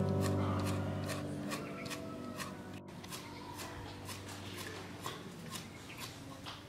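Cleaver chopping rapidly on a wooden chopping board, a steady rhythm of sharp knocks about three a second. Background music fades out during the first second or two.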